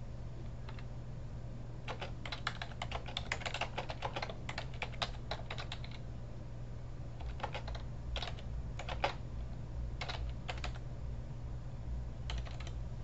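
Computer keyboard typing: a quick run of keystrokes from about two to six seconds in, then scattered single keystrokes.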